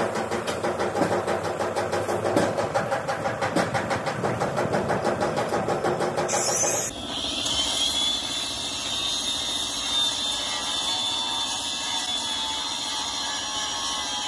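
A motor-driven air compressor running with a fast, even pulsing beat. About seven seconds in the sound changes abruptly to a steady hiss.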